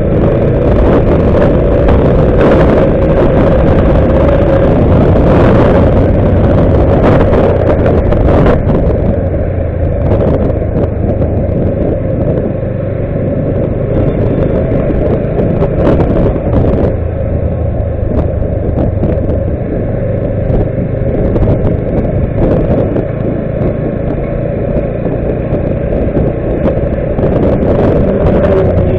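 Motorcycle being ridden along a road: a loud, steady rush of engine and wind noise on the microphone.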